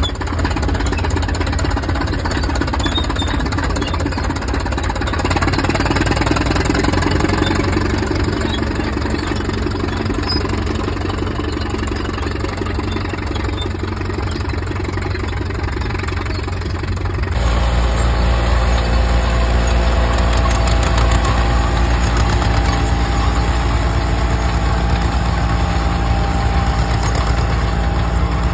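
Antique crawler tractor engines running under load while pulling plows. First an early canopied crawler's engine runs with a rapid, even beat. About two-thirds of the way through it gives way abruptly to the steadier, louder engine of an orange Allis-Chalmers crawler.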